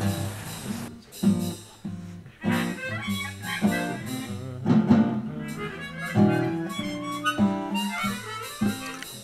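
Harmonica playing a tune in short phrases over guitar accompaniment.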